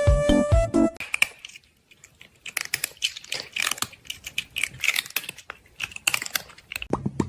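Rapid, irregular clicking and tapping, like keys being typed. A music track ends about a second in, and a new beat of repeated plops starts near the end.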